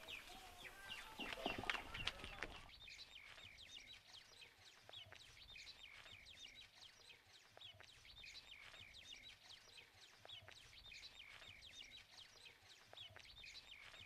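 Faint small birds chirping over and over, many short quick calls. A few louder rustles and knocks come in the first couple of seconds.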